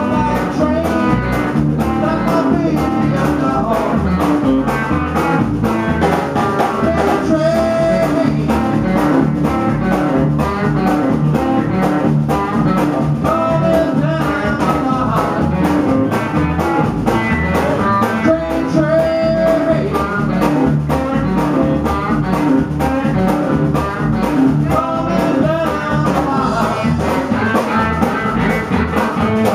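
Live band playing a song: a man singing over guitar, upright double bass and a drum kit, with a steady beat.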